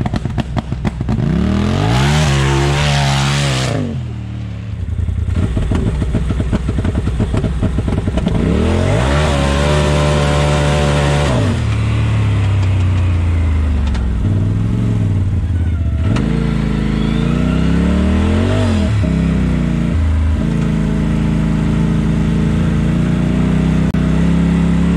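Stage 6 big-turbo Polaris RZR Turbo side-by-side on E85, its turbocharged twin-cylinder engine revving hard in three pulls where the pitch climbs and falls, with launch control in use. From about twenty seconds in it runs at a steady pitch under way.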